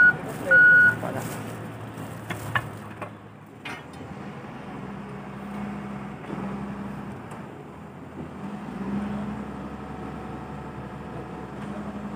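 A heavy vehicle's reversing alarm beeps twice at the start, followed by a few knocks. Then a heavy machine's engine runs with a low hum that swells and eases.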